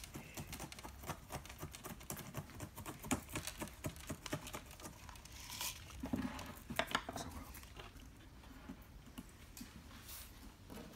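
Granular bonsai soil being worked into a pot with chopsticks and trickled from a hand scoop: a scatter of small, irregular gritty scratches and clicks.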